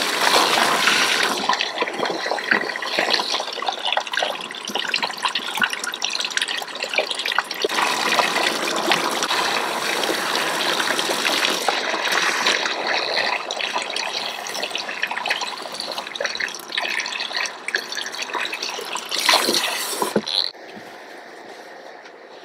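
Running water splashing steadily during a hair wash at a basin, as in a water-circulation head spa; it stops suddenly about twenty seconds in, leaving a faint hiss.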